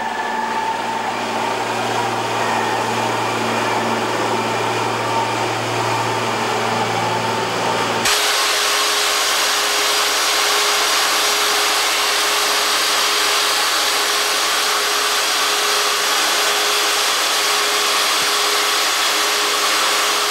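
Steady industrial machinery noise with a low hum. About eight seconds in it cuts abruptly to a different, hissier machine noise carrying one steady hum.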